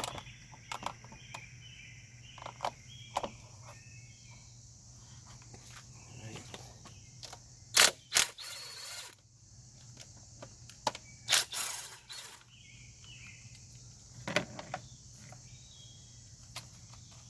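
Hand tools working on an engine: scattered clicks, taps and clanks, with a couple of brief scraping rattles near the middle, as the 10mm bolts holding the wiring harness are loosened and removed. A steady high insect-like chirring and a low hum run underneath.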